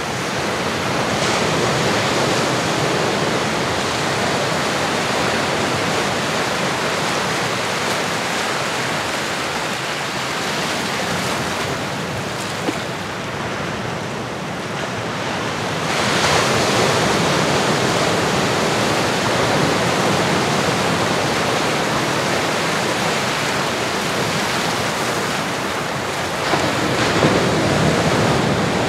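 Ocean waves washing in, a steady wash of surf that swells and eases, loudest again after about sixteen seconds.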